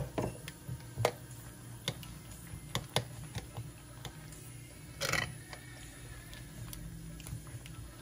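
Spoon stirring yogurt raita in a glass dish, clinking against the glass at irregular intervals, with a longer scrape about five seconds in.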